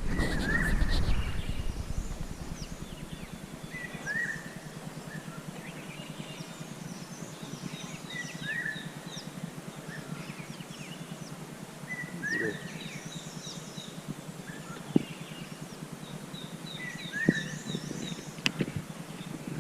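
Wild birds calling outdoors: one bird gives a short, sweeping call that repeats about every four seconds, while another gives quick runs of high, short notes. A low rumble, like wind or handling noise, sounds in the first two seconds, and there are a couple of sharp clicks near the end.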